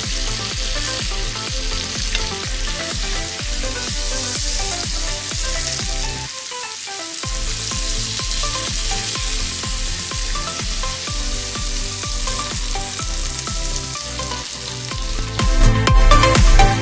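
Beef entrecote steaks sizzling as they fry in a pan, stirred and turned with a wooden spatula. Background music with a steady beat runs underneath.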